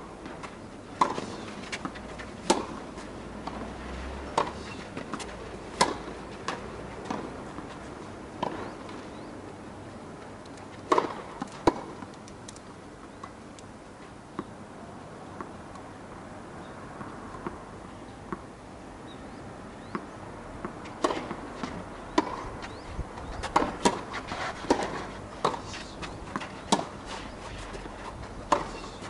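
Tennis rally: sharp knocks of the ball struck by racket strings and bouncing on the court, coming thick and fast for the first dozen seconds, sparse in the middle, and frequent again from about two-thirds of the way in.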